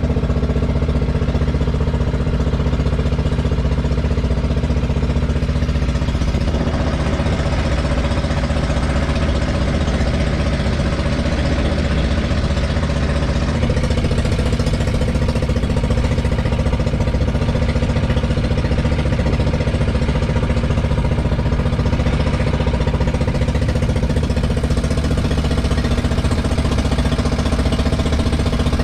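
Motorized outrigger boat (bangka) engine running steadily under way, a loud continuous mechanical drone with a slight change in note a few seconds in.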